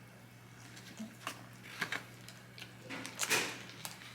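Close-miked eating sounds: a handful of short smacks and clicks of biting and chewing, the loudest about three seconds in, over a faint steady hum.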